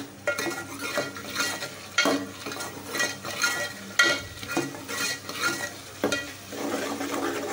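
Metal spoon stirring beef qeema as it fries in the pot, scraping against the pot about two times a second over a steady sizzle. The masala is being fried down until the oil separates.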